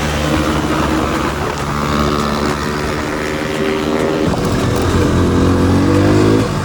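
Motorcycle engine running under way, its pitch steady at first. About two-thirds of the way in it climbs as the bike accelerates, then cuts off abruptly at the end.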